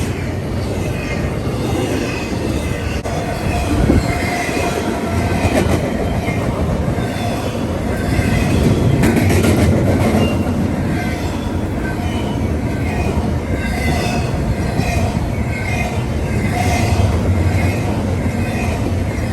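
A train rolling past on the rails with heavy rumble and clickety-clack, its wheels squealing in many short repeated squeaks throughout.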